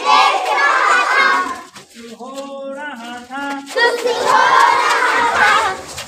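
A group of children's voices calling out together in two loud bursts, the first at the start and the second about four seconds in, with fewer, quieter voices between them.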